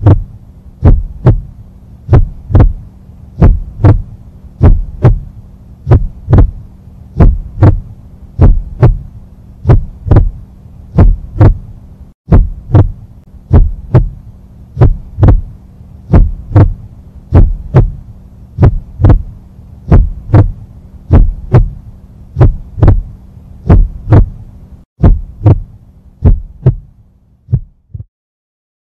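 Heartbeat sound effect: slow, steady deep thumps repeating over a low steady hum, dropping out briefly twice and stopping just before the end.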